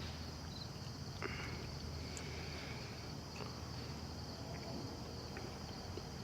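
Crickets chirring steadily in the background, with a few faint clicks and taps, the clearest about a second in.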